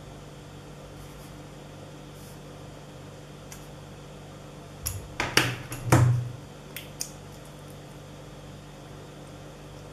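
A brief cluster of small plastic clicks and handling knocks as a USB flash drive and micro-USB OTG adapter are pulled apart and handled close to the microphone, over a steady low background hum.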